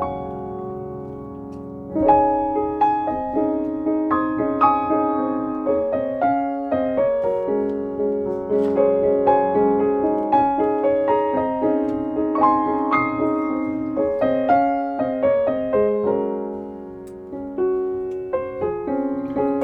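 Solo piano background music: a sustained chord, then a gentle, steady melody of single notes over chords about two seconds in.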